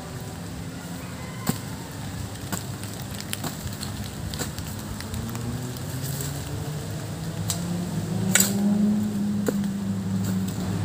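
A low motor hum that slowly rises in pitch and grows louder over the second half, with scattered sharp clicks and snaps.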